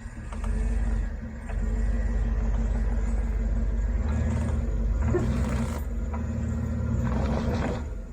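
Truck engine running under load close by while towing a camper trailer, a deep steady rumble that eases briefly about a second in, then holds until it drops away near the end.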